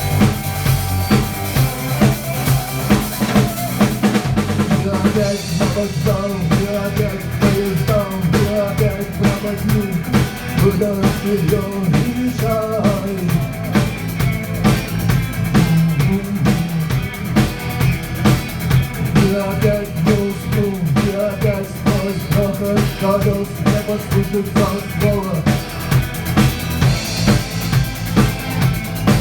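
Instrumental break of a rock song: a drum kit keeps a steady beat with bass drum and snare under a bass line and a melodic lead line.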